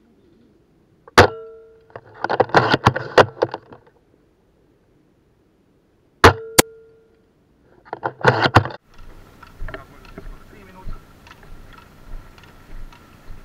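Spring-powered bolt-action airsoft sniper rifle (JG BAR10) fired twice, each shot a sharp crack with a brief metallic ring from the spring. Each shot is followed by a second of rattling clatter as the bolt is cycled. Near the end this gives way to faint outdoor ambience with light rustling.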